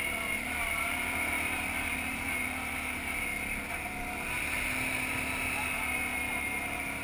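Quad ATV's engine running steadily under way.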